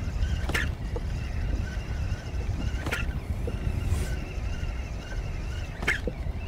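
Wind rumbling on the microphone, with the faint whir of a spinning reel being cranked. Three sharp taps break through, about a second in, near the middle and near the end.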